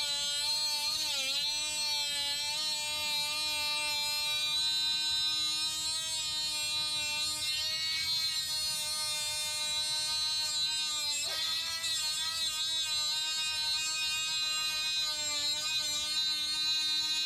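Milwaukee M12 Fuel 3-inch brushless cut-off tool running with a steady high whine as its metal cut-off wheel cuts into a metal valve cover. The pitch sags briefly about a second in and again around eleven seconds in as the wheel bites under load.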